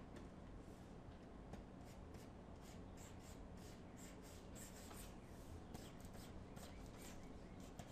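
Faint scratching of a pen stylus on a graphics tablet: short, irregular brush strokes, over a low steady hum.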